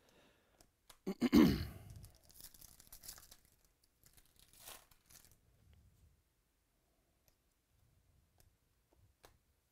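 A foil trading-card pack being torn open: a loud rip just over a second in, then short bursts of foil crinkling as the wrapper is pulled apart, and faint ticks of cards being handled.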